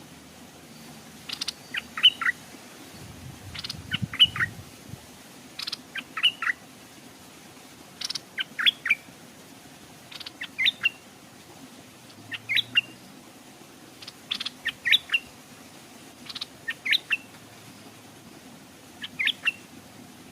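Stripe-throated bulbul singing short phrases of three or four quick notes, repeated about every two seconds.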